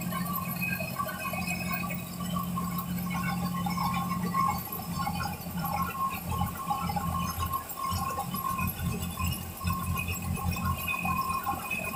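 Creper roller groove cutting on a CNC machine: an electric motor driving a disc cutter into the roller. A steady hum and whine, with the low hum turning choppy and uneven as the cut goes on, about halfway through.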